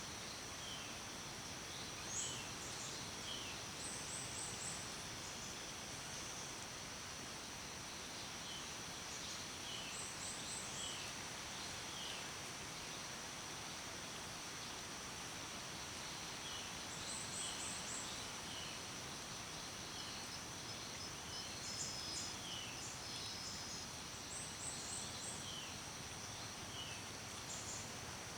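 Natural outdoor ambience: a bird sings short phrases of quick high chirps, repeating every six or seven seconds, over a steady hiss and a constant high-pitched insect drone.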